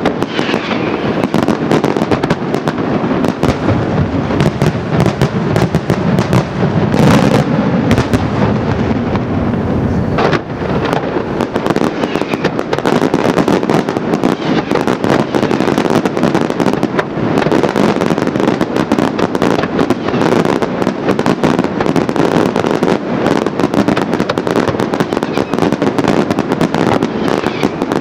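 Daytime aerial fireworks: a dense, continuous run of shell bursts and crackling reports, many bangs a second, with a few louder cracks about seven and ten seconds in.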